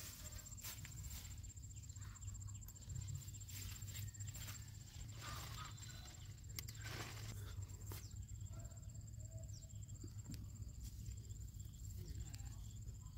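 Rustling of leafy bean vines with soft snaps and crackles as long beans are picked by hand, over a steady high insect trill.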